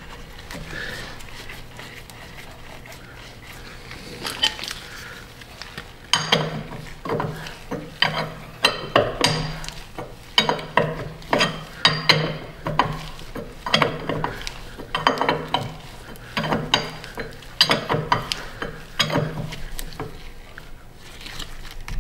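Ratchet wrench clicking in short runs as it tightens a hydraulic filter housing, with metal clinks. The first few seconds are quieter while the housing is threaded in by hand, and the clicking starts about six seconds in.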